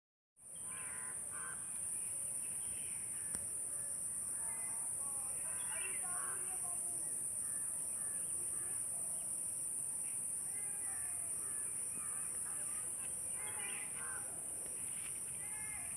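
Outdoor ambience: a steady high-pitched hiss with scattered short bird calls, including crow-like caws, and faint voices.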